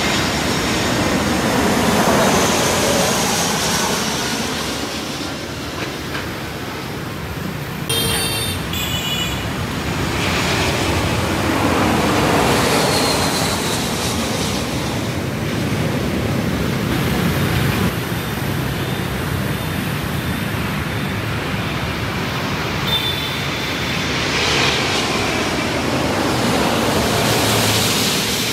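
Jet airliners on final approach passing low overhead one after another, among them an Airbus A321 and an Airbus A350: engine rumble with a whine that falls in pitch as each goes by, swelling three times.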